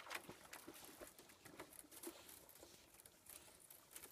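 Faint, irregular crackling and tinkling of thin pond ice and water as a retriever swims and breaks through the skim ice.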